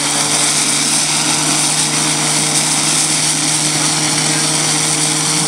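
Portable fire pump engine running steadily at high revs while pumping water, with the hiss of two water jets from the hose nozzles.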